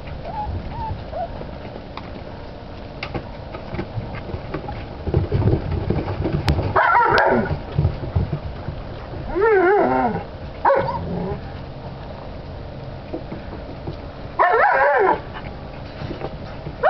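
Alaskan Malamute puppies yipping and whining in about four short cries with wavering pitch, the first about seven seconds in, with a few soft clicks between them.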